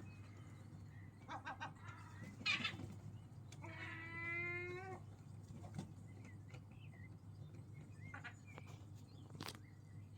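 Animal calls over a steady low hum: a short harsh squawk about two and a half seconds in, then one drawn-out, slightly rising call lasting just over a second, with a few faint shorter calls and clicks later.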